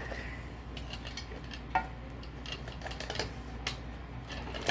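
Scattered small clicks and scrapes of a blade prying and scraping at the glued parts of a subwoofer being torn down without heat, one sharper click a little under two seconds in.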